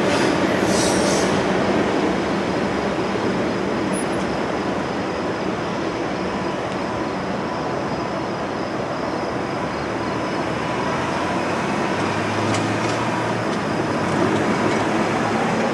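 Norfolk Southern freight train rolling past, a steady rush and rumble of wheels on rail, with a brief high wheel squeal in the first second.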